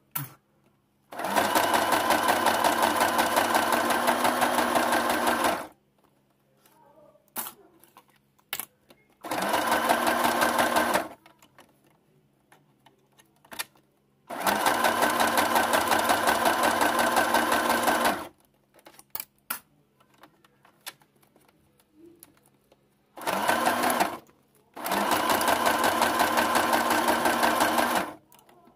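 Sewing machine stitching bias binding, running in five stop-start bursts of fast, even stitches lasting one to four seconds each, with small clicks of handling between the runs.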